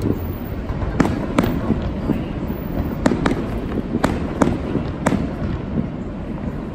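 Aerial fireworks shells bursting: about seven sharp bangs, several of them in quick pairs, over a steady low rumble.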